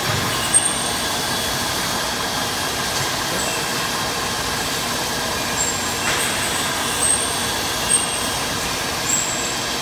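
CNC single-head beam drilling machine running: a steady, even machine noise with six short, high-pitched squeals spaced irregularly across it.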